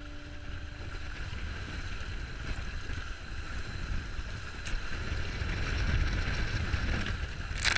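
Water rushing along the hull of a small sailboat under way, with wind buffeting the microphone as a steady low rumble. A short, sharp noise comes near the end.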